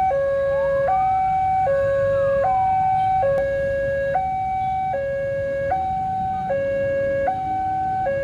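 Railway level crossing warning alarm sounding its electronic two-tone signal, alternating high and low about every 0.8 s, as the crossing closes for an approaching KRL commuter train. A low rumble runs beneath it, and a fainter tone slides down, up and down again in the first three seconds.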